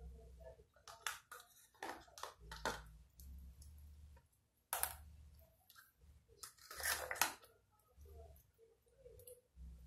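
Hands mixing and squeezing homemade gel slime in a container: a string of irregular short squelches and crackles, with low bumps of handling.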